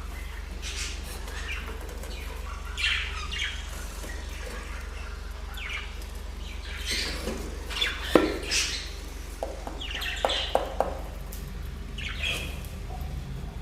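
Budgerigars chirping in short, scattered calls, with a few sharp knocks about eight and ten seconds in, over a steady low hum.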